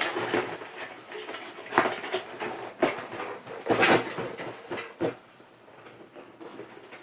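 Cardboard model-kit boxes being handled and set down: four knocks and scrapes about a second apart, then quieter for the last couple of seconds.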